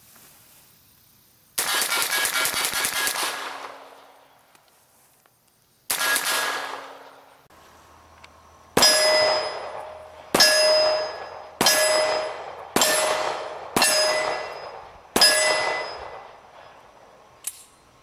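Gunfire on steel targets: a rapid string of shots lasting about two seconds, a shorter rapid string a few seconds later, then six single shots about a second apart, each followed by the ringing of a hanging steel silhouette plate as it is hit and swings.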